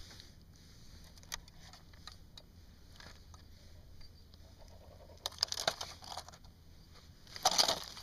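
Handling noise as an ice-fishing tip-up is lifted from the hole and its line is pulled in by hand: a few faint clicks, then scraping and crunching on the crushed ice about five seconds in, and a louder crunch near the end.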